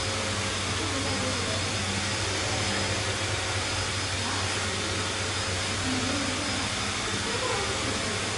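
Electric inflation blower running steadily, a loud even rush of air with a low hum underneath, keeping an inflatable balloon filled.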